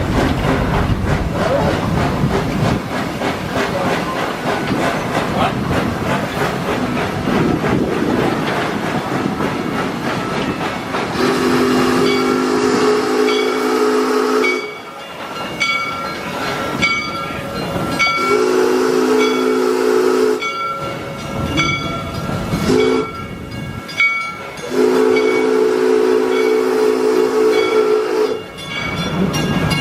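Steam locomotive of a park railroad running along with a steady rolling hiss. About eleven seconds in, its chime whistle blows the crossing signal: long, long, short, long. Through the second half its bell rings, about one stroke a second.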